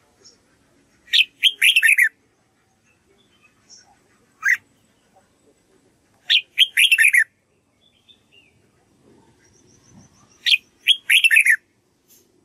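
Red-whiskered bulbul singing: three short phrases of quick, falling notes, about five seconds apart, with a single sharp note between the first two.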